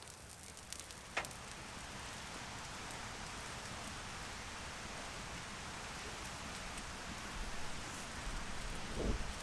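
Steady rain pattering, with a sharp click about a second in and a low thump near the end.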